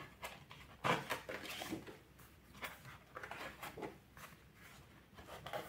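Pages of a large pad of thick scrapbook paper being turned and handled: a few soft paper rustles and flaps, the loudest about a second in.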